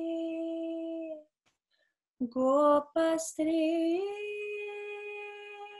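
A woman singing a Sanskrit shloka to Krishna unaccompanied: a long held note breaks off about a second in, and after a short pause she sings the word "gopastree" and settles into another long held note that slowly fades.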